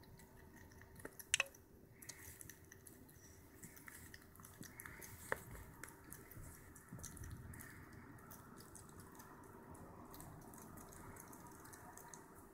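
African pygmy hedgehog eating mealworms from a plastic tub: faint, quick crunching and clicking as it chews and roots through the worms and oat flakes, with a couple of louder clicks.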